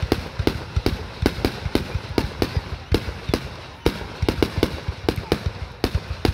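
Aerial fireworks bursting in a rapid barrage, a dense, irregular string of sharp booms and cracks, about three or four a second.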